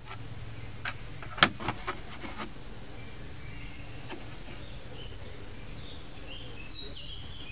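Outdoor background noise with a few sharp clicks in the first two seconds, the loudest about a second and a half in. Small birds then chirp faintly in the background, short high calls that bend up and down in pitch.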